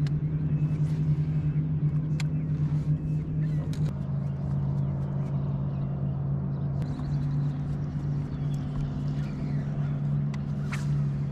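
Steady low hum of a boat motor running, shifting slightly in pitch about four seconds in, with a few faint sharp clicks over it.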